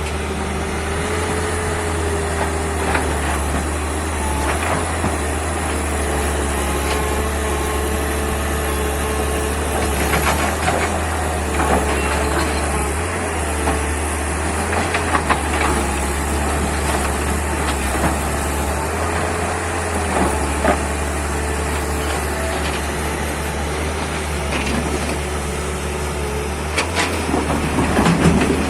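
Tata Hitachi 200 excavator's diesel engine running steadily, with a hydraulic whine that rises and falls as the machine works. Stones knock and clatter now and then, most clearly about a third of the way in, around the middle, and near the end.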